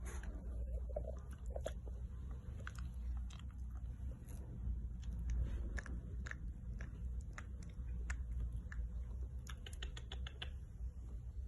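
Crunchy chewing: a steady run of irregular crisp clicks and crunches as food is bitten and chewed, with a quick flurry of clicks near the end, over a steady low hum.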